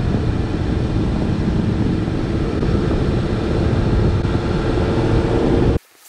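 Steady, loud road and wind rumble of a moving vehicle. It cuts off abruptly near the end.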